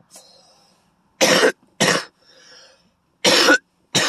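A man coughing: four short coughs in two pairs, about two seconds apart, after smoking cannabis from a pipe.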